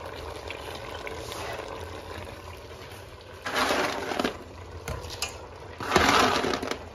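A pot of soup base simmering, with two short noisy pours into it about three and a half and six seconds in, as green beans are tipped into the pot.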